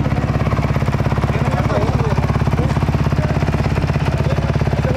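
Honda off-road race motorcycle's engine idling with a steady, rapid pulse during a pit refuel, with voices of the pit crew faintly behind it.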